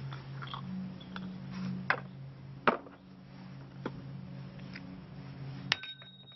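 Sharp clicks and knocks of hard cast-resin orgonite pieces against a small porcelain cup mould and each other while a piece is worked free: about four distinct knocks over a low steady hum.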